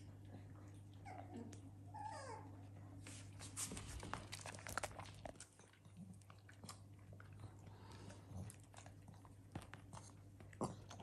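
A small dog crunching dry kibble from a metal bowl, with a run of quick crunches and clicks. A few short squeaky calls come about two seconds in, over a steady low hum.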